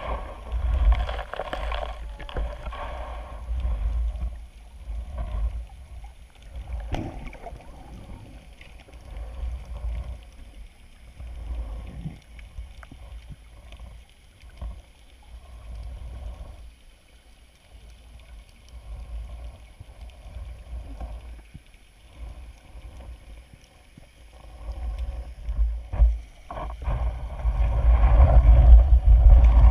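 Muffled underwater water noise against a GoPro housing, a low rumble that swells and fades every few seconds and is loudest near the end.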